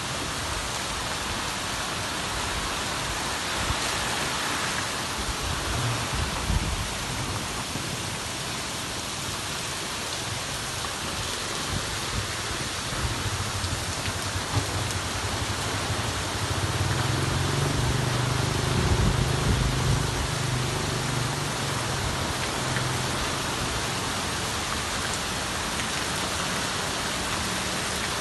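Steady rain falling, an even hiss. Past the middle, a low hum swells for several seconds and then fades back under the rain.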